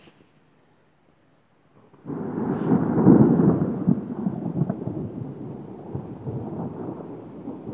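Thunder rumbling from a thunderstorm. It starts suddenly about two seconds in, is loudest a second later, then rolls on and slowly fades.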